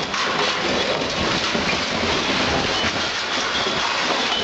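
Demolition of a multi-storey building: a continuous crunching, crackling clatter of rubble breaking and falling.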